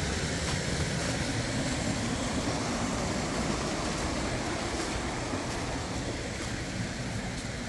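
Rushing water of a rocky brook cascading over boulders and small falls, a steady, even roar.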